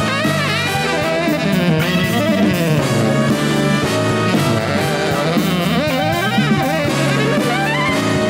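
Jazz big band playing a jazz-funk tune live: a tenor saxophone solo weaves rising and falling lines over the brass section, bass and drum kit.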